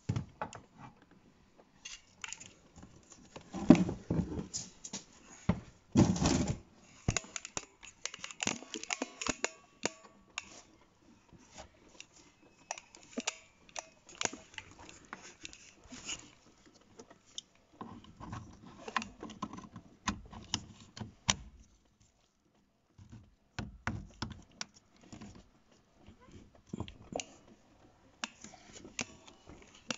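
Hands working the wiring inside an open car door: irregular clicks, knocks and rustling of cables and plastic connectors as a wiring plug is refitted to the electric window motor.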